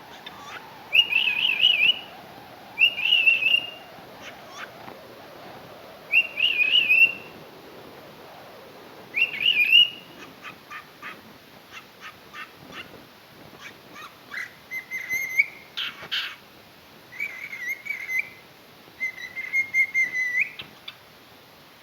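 Cockatiel singing: four warbling whistled phrases of about a second each in the first ten seconds, then a run of short clicking chirps, then several steadier, flatter whistles, with one brief harsh note about two-thirds of the way through.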